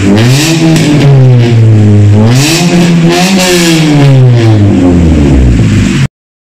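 Mitsubishi Xpander's four-cylinder engine revved repeatedly through a loud exhaust, its pitch rising and falling several times, until the sound cuts off suddenly near the end.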